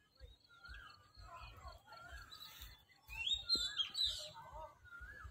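Animal cries: short wavering calls repeating every half second or so, with a louder burst of shrill rising calls about three seconds in, over regular footsteps.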